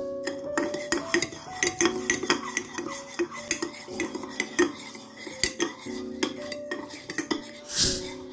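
Metal spoon stirring salt into water in a ceramic bowl, clinking against the bowl's sides and bottom several times a second as the salt dissolves. A short rushing noise comes near the end.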